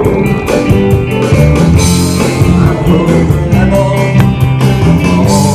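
Live rock band playing: drums keeping a steady beat under bass and electric guitar.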